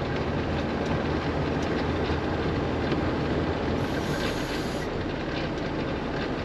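Valmet tractor running steadily with its Tokvam snow blower spinning and throwing snow, a continuous mechanical churning with faint clatter.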